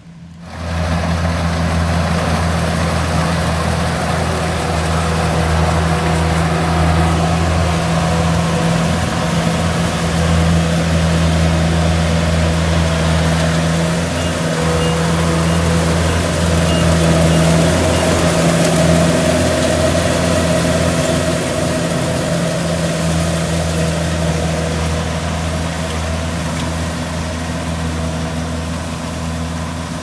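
Kubota DC70 combine harvester running steadily at working speed: a constant low engine drone under a broad rush of machinery noise. It starts abruptly about half a second in and eases slightly toward the end.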